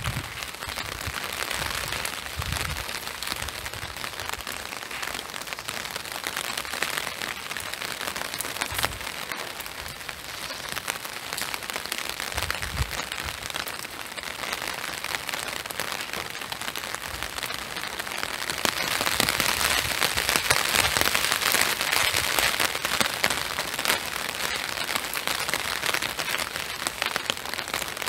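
Steady spring rain pattering, getting louder about two-thirds of the way through, with a few soft low thumps.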